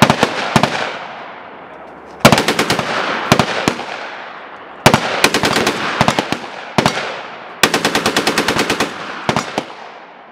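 Belt-fed machine gun firing short bursts of automatic fire at about ten rounds a second, mixed with a few single or double shots, five or six bursts in all. The longest burst, of about a dozen rounds, comes past the halfway point, and each burst trails off in an echo.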